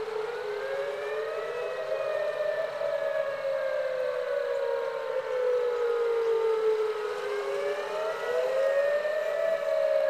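Outdoor tornado warning siren wailing, sounding a tornado warning: its pitch climbs over the first two seconds or so, slides slowly down, then climbs again about eight seconds in.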